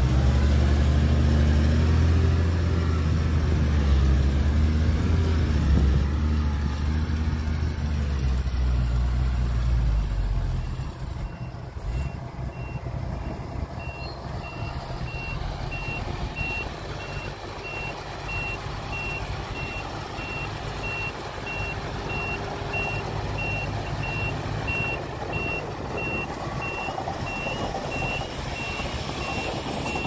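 A heavy diesel engine runs loudly for about the first ten seconds, then drops back to a lower rumble. From about twelve seconds in, a dump truck's reversing alarm sounds steady, evenly spaced high beeps as the truck backs up.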